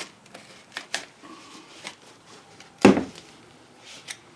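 Scattered small clicks and knocks of hands and a tool working on a rubber hose as it is cut to length, with one loud sharp knock about three seconds in.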